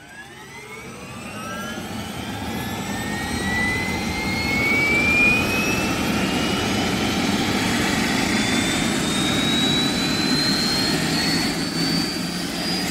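Jet engine spooling up: a whine that climbs steadily in pitch over the whole span, under a rush of noise that swells louder during the first few seconds and then holds.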